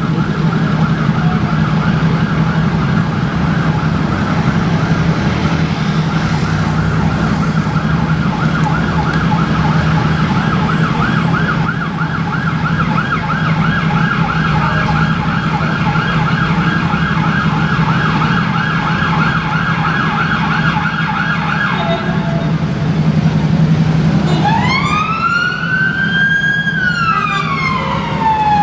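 Ambulance siren on a fast yelp for about twenty seconds, then after a short break switching to a slow rising-and-falling wail near the end, over the steady low drone of idling traffic.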